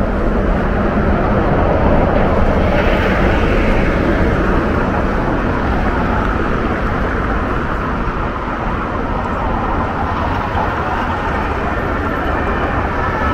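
Steady city traffic noise with a deep rumble, swelling for a moment a few seconds in as something passes close.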